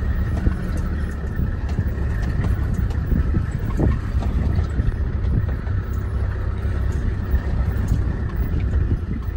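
Open-sided safari vehicle driving along a dirt track: a steady low rumble of engine and tyres, with small knocks and rattles from the bodywork.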